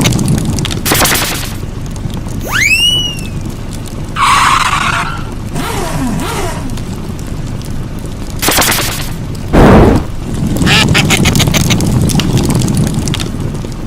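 Cartoon sound effects: a low steady rumble, a rising whistle sweep about two and a half seconds in, and several short loud bursts of noise, the loudest nearly ten seconds in.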